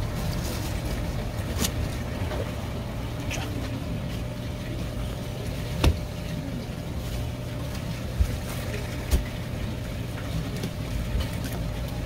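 Steady low mechanical rumble, with a few sharp knocks on top, the loudest about six seconds in.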